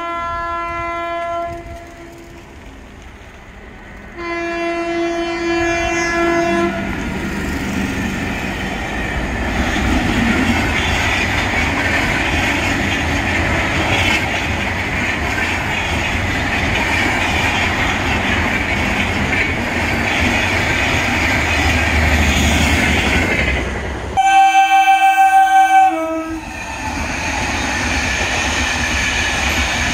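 Three-phase MEMU electric train sounding its horn twice as it approaches: a short blast at the start and another about four seconds in. Then comes the steady noise of its wheels on the rails as the coaches run past close by. A louder, lower, pulsing horn blast sounds for about two seconds near the end, and the wheel noise carries on afterwards.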